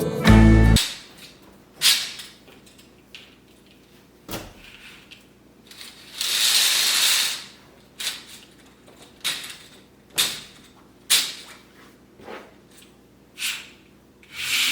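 Scattered clicks and knocks of kitchen items being handled, about one a second, with a hiss lasting about a second and a half midway.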